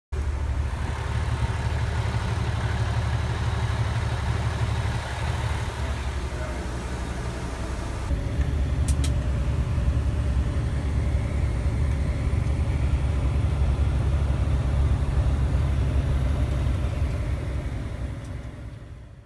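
Fire engine running and driving, heard from inside the cab: a steady low engine rumble that changes slightly about eight seconds in.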